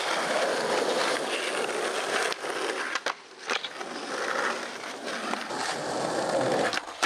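Skateboard wheels rolling over an asphalt driveway, with a few sharp clicks along the way and a brief lull a little past the middle.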